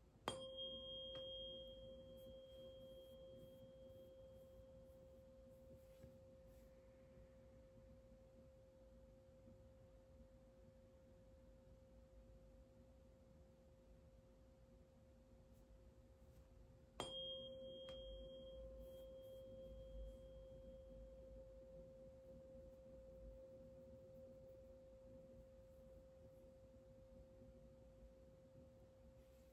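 A sound-healing tuning fork struck twice, about seventeen seconds apart. Each strike rings on as one quiet, steady pure tone, with a brief high overtone that fades within a few seconds.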